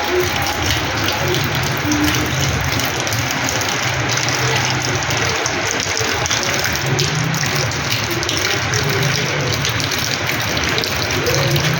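Rainwater pouring down and splashing steadily onto a house's terrace floor in heavy rain, a dense continuous rush.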